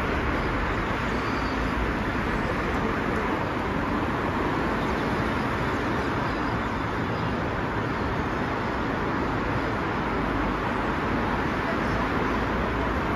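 Steady road traffic noise from cars and buses driving along a multi-lane city road, an even rush with no single vehicle standing out.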